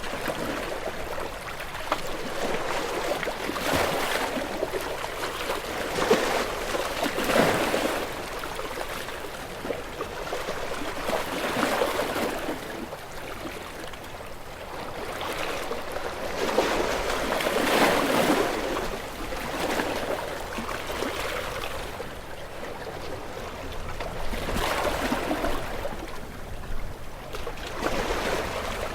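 Sea waves washing against shoreline rocks, surging and splashing every few seconds with rushing and trickling water between.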